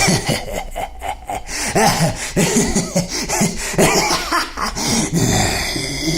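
A man laughing as an old vampire character: a long run of quick, low laughing pulses, performed as a horror sound effect.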